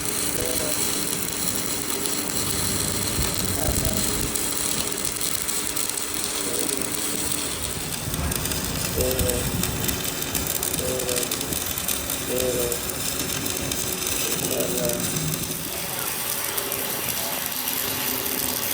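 Metalworking lathe running, with a steady mechanical clatter from its gears.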